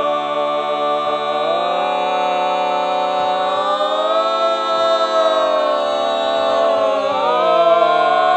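Male barbershop quartet singing a cappella, holding one long unbroken four-part chord. The voices slide to new notes a few times, changing the chord, and it swells slightly near the end.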